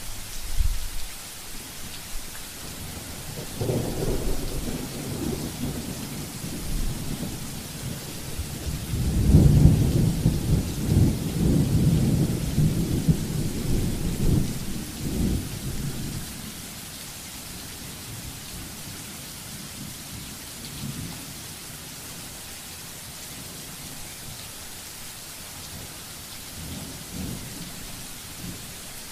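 Steady rain with a long peal of thunder: the rumble builds about three seconds in, is loudest about ten seconds in, and dies away over the next few seconds. Fainter rumbles of thunder come twice more near the end.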